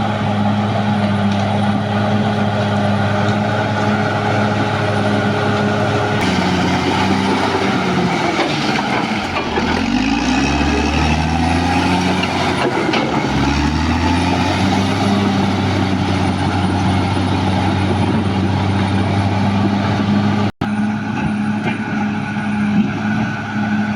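Caterpillar D6R bulldozer's diesel engine running hard at a steady high pitch. About six seconds in, the engine note sags down over a few seconds and then climbs back, the way a dozer lugs under a heavy blade load and recovers, before running steadily again. A split-second drop-out comes about twenty seconds in.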